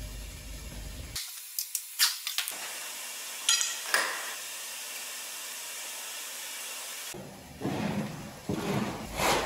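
Sharp metallic clicks and clinks as bolts on a Scania DC16 V8 engine block are tightened with a long torque wrench, a few spaced clicks in the first four seconds, then louder knocks and handling noise near the end.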